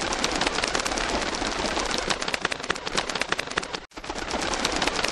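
A large flock of feral pigeons taking off, a dense clattering of wingbeats. It cuts out for an instant a little under four seconds in.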